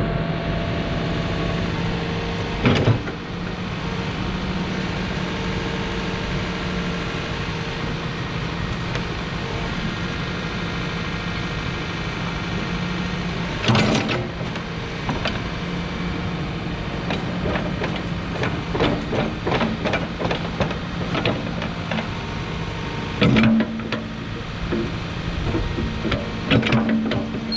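Case 590 Super N backhoe's diesel engine running steadily while the hoe is worked, with several loud metal clunks and a stretch of rapid clicking and rattling partway through.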